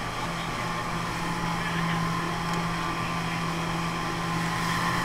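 Dive boat's engine running steadily under way, a constant low drone with the rush of wind and water over it.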